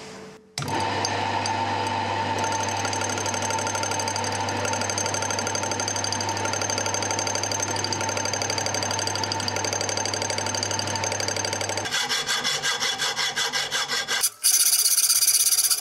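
Small metal lathe running steadily, its motor humming while a cutting tool bores the protrusions off a spinning aluminium grinder guard. Near the end the cutting gives way to a fast run of rasping strokes, then a louder, harsher scraping.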